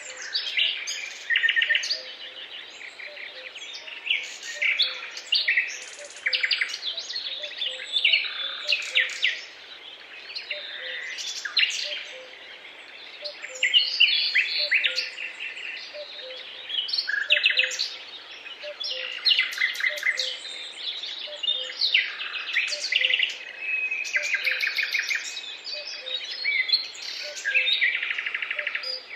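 Many songbirds singing at once, a dense chorus of overlapping chirps and rapid trills.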